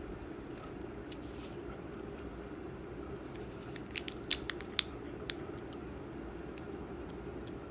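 A cat biting and chewing a meat treat stick: a quick run of sharp clicking bites a little past the middle, over a steady low hum.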